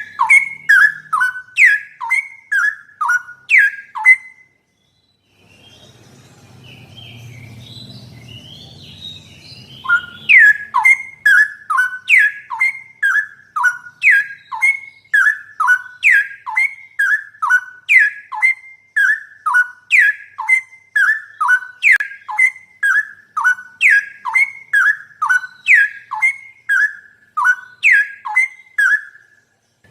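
Straw-headed bulbul (cucak rowo) singing: fast, loud runs of sharp, clear descending whistled notes, two to three a second. The song breaks off about four seconds in. A low rumble with faint chatter follows, and the song starts again about ten seconds in.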